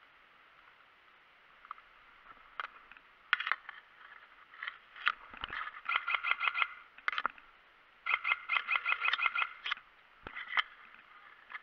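Airsoft electric guns (AEGs) firing: scattered single shots, then two rapid full-auto bursts of about eight shots a second, the second lasting about a second and a half. Two low thumps are heard among them, over a steady hiss.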